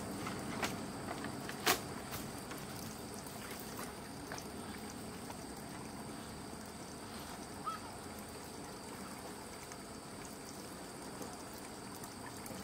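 Stream water trickling steadily, with a few short sharp clicks, the loudest a couple of seconds in.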